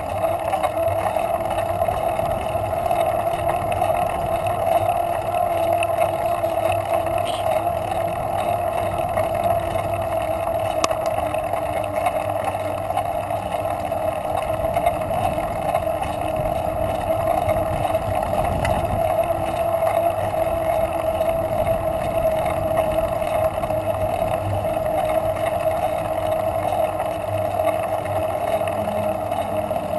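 Steady droning rush of wind and road noise picked up by a camera on a moving bicycle.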